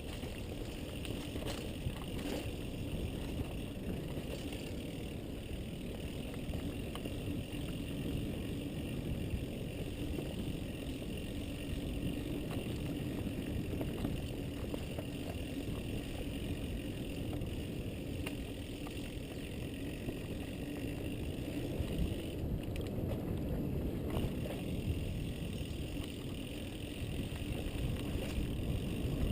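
Mountain bike rolling along a dirt singletrack: a steady rumble of tyres and riding noise, with a few short clicks and rattles from the bike.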